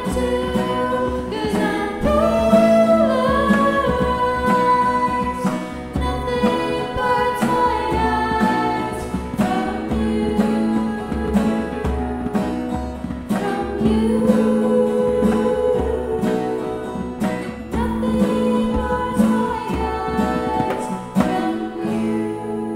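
An amateur band's original song playing, with singing over instruments; the music grows quieter toward the end.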